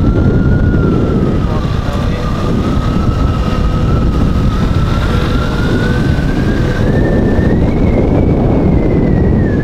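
Heavy wind buffeting on a helmet-mounted lav mic while riding a KTM 390 motorcycle, over its single-cylinder engine running. A thin whine drifts slowly up in pitch, peaks about eight seconds in, then falls back.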